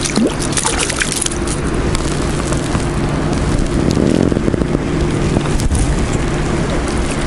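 A hooked trout splashing and thrashing in shallow water at the water's edge, the splashes thinning out after about a second. A steady loud rushing noise with a low hum runs underneath throughout.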